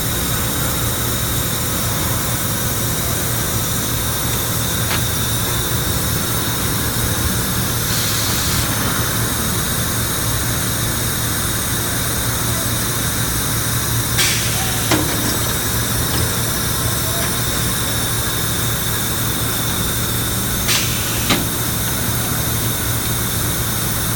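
Industrial furnace in a powdered-metal plant running: a steady low drone under an even hiss, with a few sharp clicks or knocks about halfway through and again near the end.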